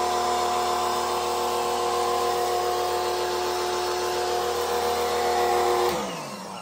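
Sun Joe SPX3000 electric pressure washer's motor and pump running with a steady whine under the hiss of soapy water spraying from the wand. About six seconds in, the trigger is released and the motor winds down, its pitch falling away.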